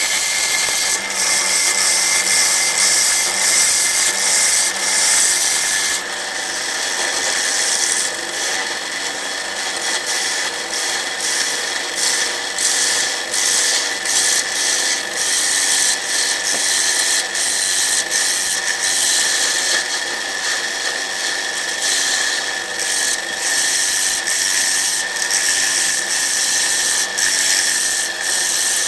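A gouge cutting the inside of a spinning jacaranda bowl on a wood lathe: a continuous hiss of shavings being cut, broken by frequent short catches and gaps as the tool moves across the wood. A steady high whine from the running lathe sits underneath.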